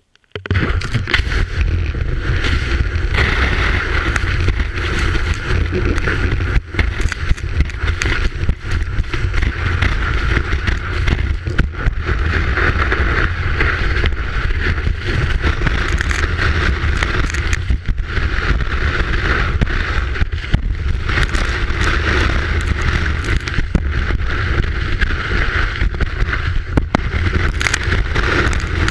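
Telemark ski running through powder snow, heard from a camera mounted on the ski: a loud, steady rush of snow and wind with a deep rumble, starting suddenly just after the start, with occasional sharp knocks from bumps in the snow.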